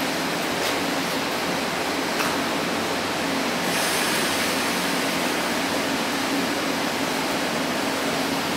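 EP09 electric locomotive standing at the platform with its cooling blowers running: a steady rushing noise with a low hum underneath. The hiss grows briefly brighter about four seconds in.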